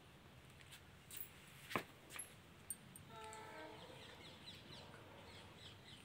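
Quiet room with a few soft clicks and knocks, the loudest about two seconds in, and a faint, brief tonal call about three seconds in.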